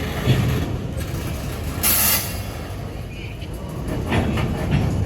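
Long freight train of flatcars rolling by, its wheels on the rails making a steady rumble with scattered clicks, and a brief hiss about two seconds in.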